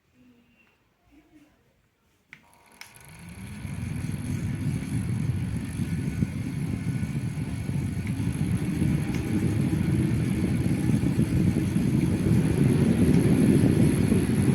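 Small battery neck fan clicked on about two seconds in, spinning up over a second and then running steadily, its airflow rushing over the microphone, with a faint high motor whine.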